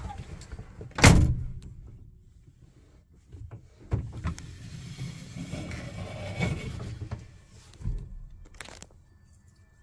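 A car door shut with a heavy thunk about a second in, then softer knocks and handling noise inside the cabin of a 1956 Chevrolet Bel Air.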